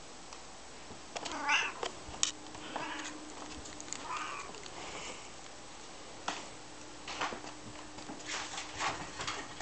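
A cat meowing about four times in short calls, followed by a run of light clicks and knocks.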